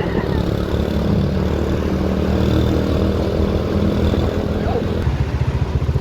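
Bus engine running close by. Its pitch drops about a second in, and near the end it settles into a pulsing, uneven idle.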